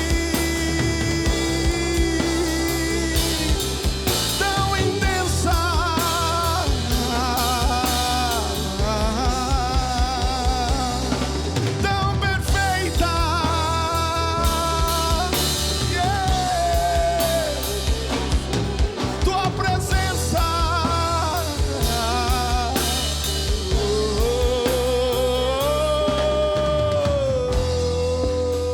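Gospel rock band playing an instrumental passage: drum kit and bass keeping a steady beat under a lead melody that bends and wavers, after a long held note in the first few seconds.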